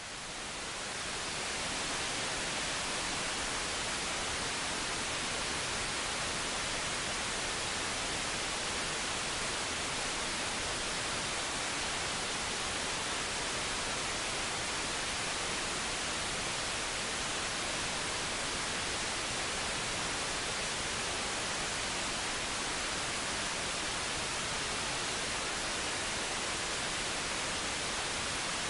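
Meteor-M2 weather satellite's LRPT digital downlink (QPSK, 137.1 MHz) received on an RTL-SDR and demodulated in wide FM: a steady, even hiss that swells up over the first couple of seconds and then holds level, with no ticks or tones.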